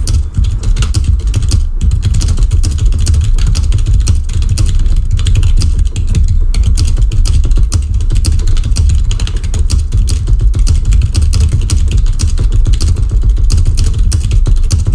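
Fast continuous typing on a computer keyboard at over a hundred words a minute: a dense clatter of keystrokes over a heavy low rumble.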